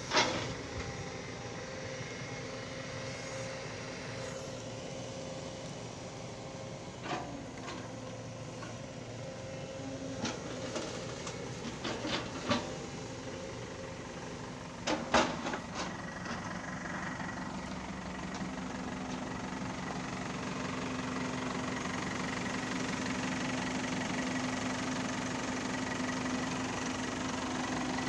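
Diesel engines of a backhoe loader and a tracked excavator running steadily while digging, with several sharp knocks scattered through the first half. Past the middle the engine note grows louder and holds a steady hum.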